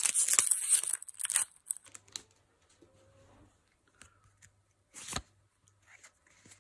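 Foil Pokémon booster pack wrapper being torn open, a loud crinkling and tearing for nearly two seconds. Then faint rustling of the cards, with one short sharp noise about five seconds in.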